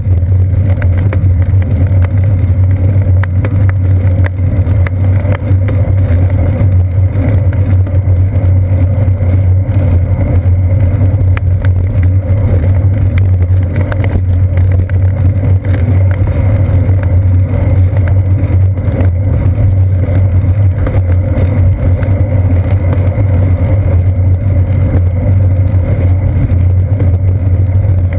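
Loud, steady low rumble of a bicycle rolling over asphalt, picked up by a GoPro Hero 2 in its sealed housing mounted on the seat post, with road vibration and wind on the camera.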